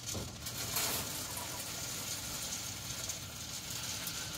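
Oak wood pellets pouring from a galvanized bucket into a pellet smoker's hopper: a steady rushing rattle, like rain, of many small pellets falling.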